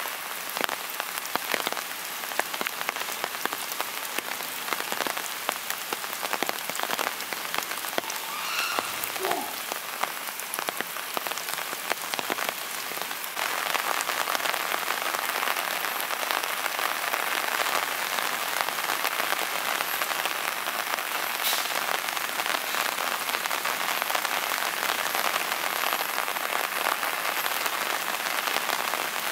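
Steady rain falling, with many small sharp drop clicks in the patter. The rain grows heavier and louder about halfway through.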